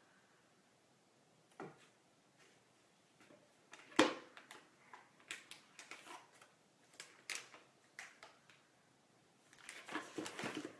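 Scattered small clicks and taps from handling a liquid lipstick wand and tube close to the microphone, with one sharp click about four seconds in and a quick run of rattling taps near the end.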